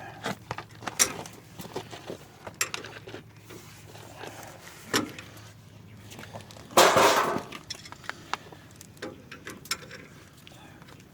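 Scattered metal clicks and clinks of hand tools on brake parts, with one louder clattering scrape about seven seconds in.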